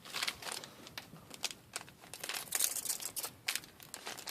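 Trading cards from an opened booster pack being handled: crinkling and rustling with quick, sharp card clicks, busiest about two to three seconds in.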